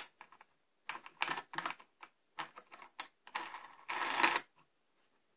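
Wooden tool rest of a homemade lathe being slid back and forth by hand in its slotted wooden base. A sharp click, then a run of clattering knocks and scrapes for about four seconds, dying away to a few faint ticks near the end.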